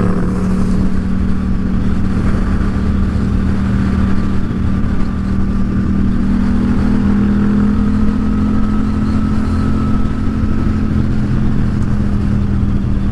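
Yamaha XSR700's 689 cc parallel-twin engine running at a steady cruise under way, with wind and road rush over the helmet-mounted microphone.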